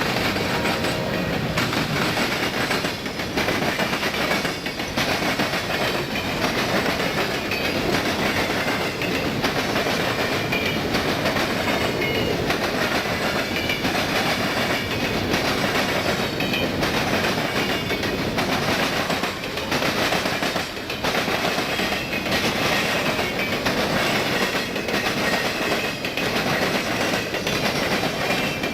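Freight train cars rolling past at steady speed, their wheels clicking over the rail joints.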